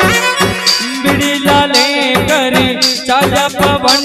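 Live Rajasthani devotional bhajan music: a hand drum keeps a steady quick beat under keyboard and a singer's voice drawing out an ornamented melodic line without clear words.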